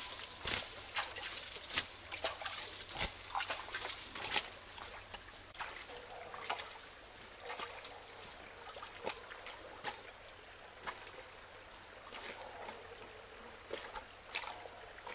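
Shallow stream water sloshing and trickling as a person moves and works in it, with scattered sharp clicks and crackles, thickest in the first few seconds. Footsteps on dry leaf litter come near the end.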